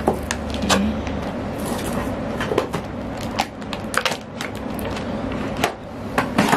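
Eyeshadow palette and its box being handled and unpacked: irregular sharp clicks and rustles of packaging.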